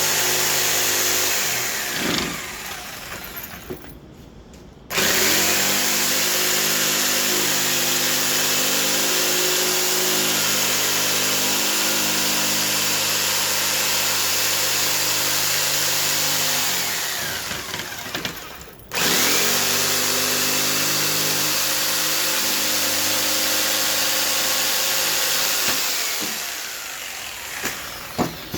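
An electric power tool's motor running at a steady speed with a high hiss. It is switched off and spins down with a falling hum about two seconds in, restarts with a rising whine about five seconds in, and spins down and restarts again past the middle. It winds down once more near the end.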